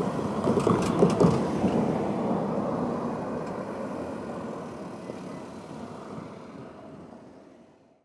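Cars driving over a railway level crossing, tyres knocking on the rails in a quick cluster about a second in. The traffic sound then fades away to silence.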